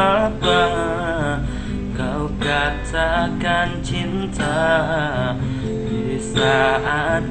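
A young man singing an Indonesian pop song, holding long notes, over acoustic guitar accompaniment.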